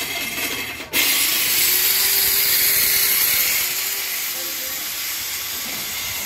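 A loud, steady hiss that starts abruptly about a second in and eases a little past the middle.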